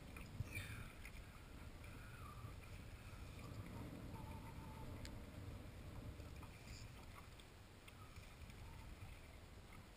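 Water lapping against a small boat's hull under a low steady rumble of wind on the microphone, with a few faint high whistles and small clicks.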